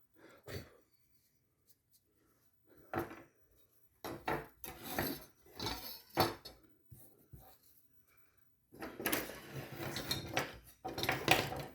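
Kitchen knives and other metal items being handled and set down on a work bench, giving irregular clinks and clatters with short pauses between.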